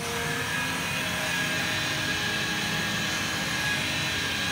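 Electric rotary polisher with a foam pad running steadily while buffing wax on a car's paint: a steady motor whine over the whir of the spinning pad. It gets a little louder at the start.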